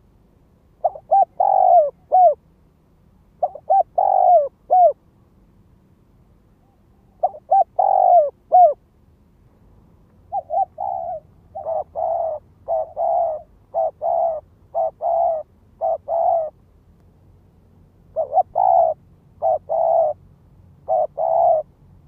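Spotted dove cooing: phrases of three or four coos with pauses between, then from about ten seconds in a faster run of short coos, roughly two a second. It is a dove call used to lure wild doves.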